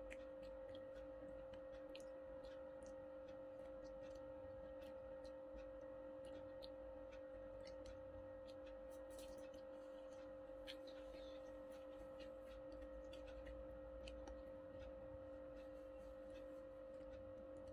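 Near silence: a steady low electrical-sounding hum, with faint scattered clicks and small crackles from handling and eating crispy fried popcorn chicken by hand.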